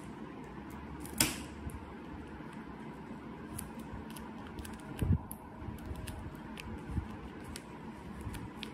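Hands pressing and handling a small stuffed squishy made of paper and clear tape: faint crinkling and light ticks, a brief sharp rasp about a second in, and dull thumps near five and seven seconds.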